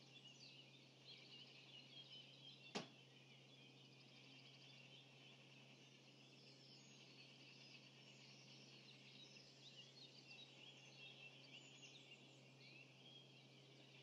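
Faint dawn chorus: many birds singing at once in a steady mix of overlapping songs and calls, with one sharp click about three seconds in.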